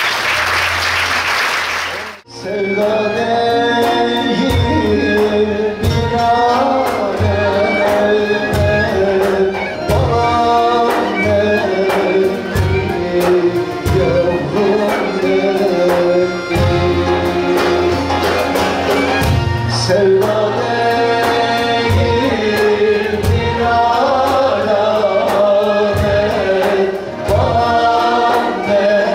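Applause for about two seconds, cut off abruptly. Then a Turkish folk music ensemble plays, with a male singer, bağlama, end-blown flute and choir over repeated low drum strokes.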